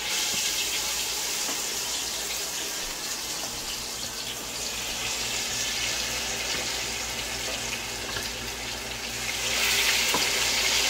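Bangamary fish deep-frying in hot oil in a pot: a steady loud sizzle with fine crackling.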